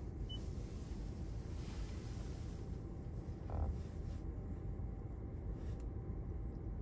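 Toyota RAV4 infotainment touchscreen giving one short, high confirmation beep as a menu item is tapped, over a steady low rumble in the cabin. A soft knock comes about halfway through.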